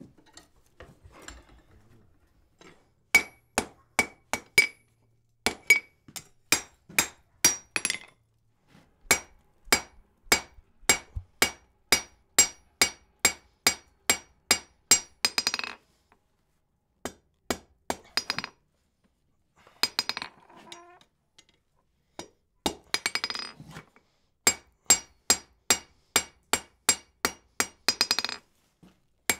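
Blacksmith's hand hammer striking red-hot iron on a steel anvil, bending the bar down over the anvil's edge. The blows come in several runs of about two a second with short pauses between, each with a clear metallic ring.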